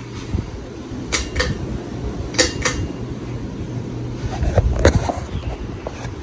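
Minka Aire Supra ceiling fan motor humming steadily, with three pairs of sharp clicks, typical of its pull-chain speed switch being pulled and let go.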